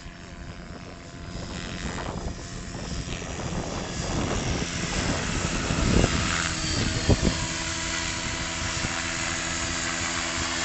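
Helicopter flying in close, its rotor and engine noise growing steadily louder.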